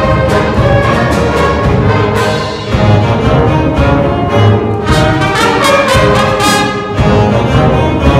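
Youth symphony orchestra playing live, strings and brass together in a lively piece with regular accented beats; the music dips briefly about two and a half seconds in, then comes back at full level.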